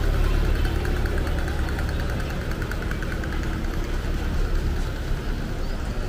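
A vehicle engine running close by, a steady low rumble that fades away after about four seconds.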